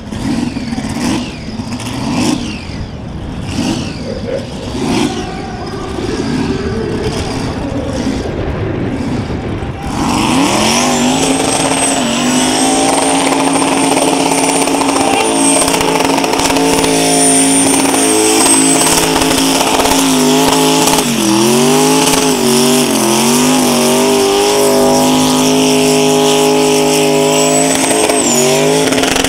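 Supercharged, twin-turbo engine of an Audi burnout car: uneven revving at first, then from about ten seconds in held at high revs with the wheels spinning, the pitch dipping and recovering a few times. A high whine runs above the engine at times.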